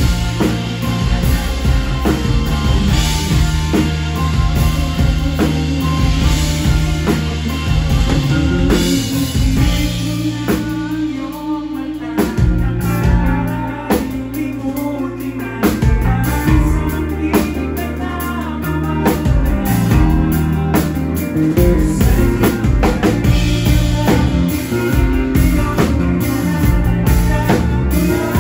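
Live rock band playing a song: drum kit, bass guitar, acoustic and electric guitars, with a male lead singer.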